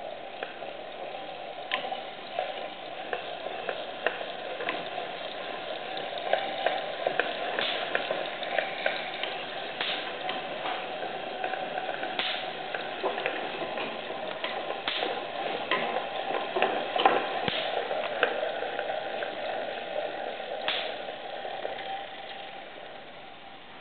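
Hand-cranked Wimshurst-type electrostatic generator with amber discs spinning: a steady hiss and whir with a running crackle of sharp clicks and snaps, the loudest about seventeen seconds in. The sound dies away near the end.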